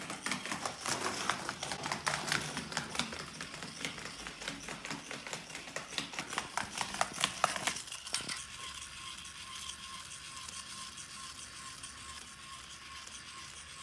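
Small battery-driven plastic toy walking robot clattering across a hardwood floor: a dense run of rapid ticks and rattles from its motor and legs. After about eight seconds the clatter gives way to a quieter, steady whir with a faint high hum as the robot moves onto a rug.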